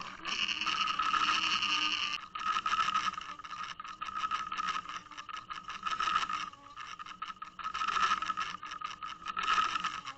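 Underwater sound from a Waterwolf fishing camera being pulled through the water ahead of a spoon lure: uneven water rush and rattling against the housing, over a steady, slightly wavering hum.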